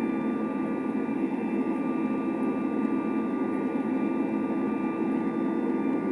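Boeing 737 jet engines running at takeoff power: a steady, deep rush with several steady high whining tones over it.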